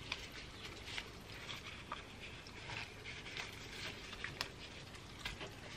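Faint handling noise of gloved hands working a raw whole chicken, pushing its legs through slits in the skin to truss it, with a few soft clicks scattered through.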